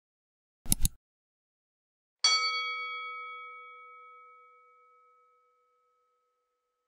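Subscribe-button animation sound effects: a quick double click just under a second in, then a single bell ding a little after two seconds that rings out and fades away over about three seconds.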